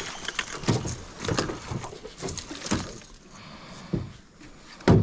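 A tarpon thrashing in a landing net as it is swung from the river into an aluminium boat: irregular splashes and knocks, with one loud knock near the end.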